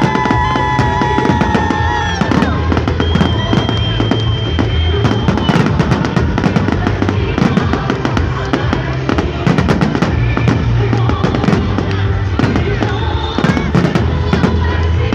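Fireworks display: rapid, overlapping bangs and crackles of bursting shells, with music playing underneath.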